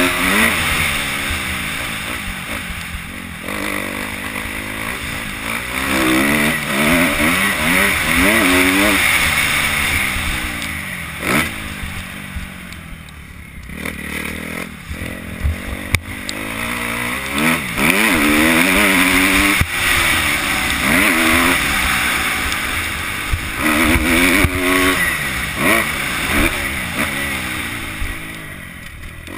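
2011 Kawasaki KX250F's four-stroke single-cylinder engine revving hard, climbing and falling again and again as the rider works the throttle and gears. The throttle shuts off for a couple of seconds about twelve seconds in and again near the end, and a few sharp knocks come through in between.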